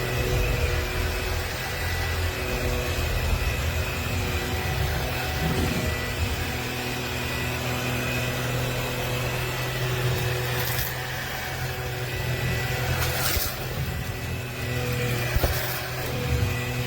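Bissell PowerClean 200W cordless stick vacuum running steadily, its motor giving a humming whine, with a few sharp knocks near the end.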